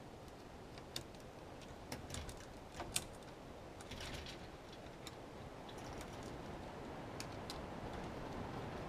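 Scattered light clicks and taps, a few at a time, over a steady low background noise. The sharpest click comes about three seconds in.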